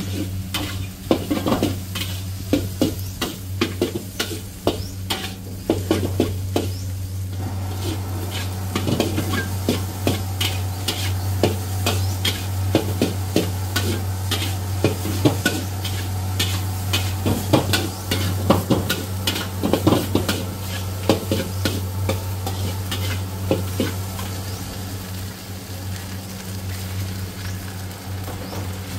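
Fried rice sizzling in a wok while a metal spatula scrapes and strikes the pan in frequent, irregular clanks, over a steady low hum.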